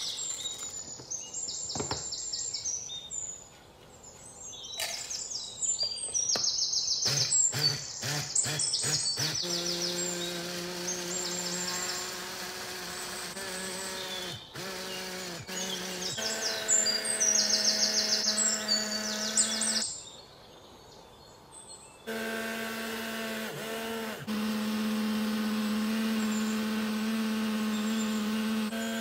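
Electric chopper motor of a hand blender running steadily as it grinds peanuts into peanut butter. Its pitch steps up partway through, and it stops for about two seconds before starting again. Before the motor starts there is a run of sharp clicks, and a bird chirps in quick high trills now and then throughout.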